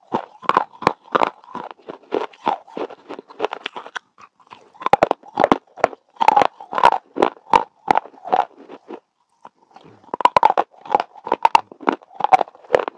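A person biting and chewing pieces of baked clay pot: a fast run of sharp, loud crunches, with two short pauses, about four seconds in and between nine and ten seconds.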